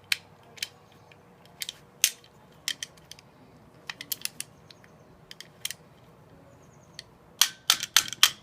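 Airsoft M4 receiver parts being handled and fitted: scattered sharp clicks and taps as the rear bolt is worked into the receiver, with a quick run of louder clicks near the end.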